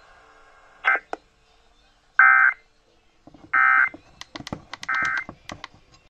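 Three short bursts of Emergency Alert System end-of-message data tones, a warbling digital signal from a radio speaker, about a second and a bit apart, marking the end of the alert. Sharp clicks come about a second in and in a quick run near the end, as a hand handles the radio.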